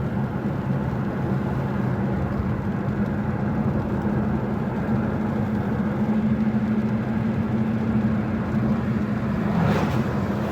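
Car driving along at a steady pace: an even engine hum under a constant rush of road noise.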